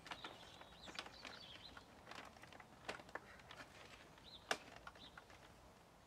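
Faint scattered clicks and knocks of a plastic motorcycle side fairing being handled and pushed into its locating grommets, the loudest knock about four and a half seconds in. Faint bird chirps in the background.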